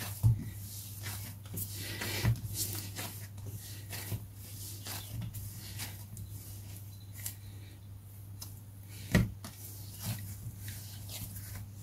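Flour-and-butter dough being kneaded by hand on a countertop: soft squishing and rubbing with irregular dull thuds as it is pushed down, the loudest about nine seconds in. A steady low hum runs underneath.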